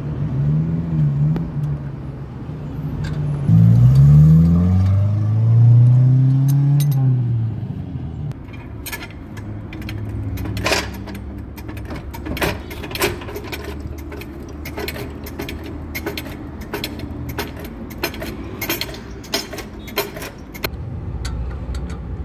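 Metal clicks and clinks of hand tools on a car's front wheel: a floor jack and a wrench on the wheel nuts, many sharp strikes from about eight seconds on. Before them, a motor rises and falls in pitch for several seconds.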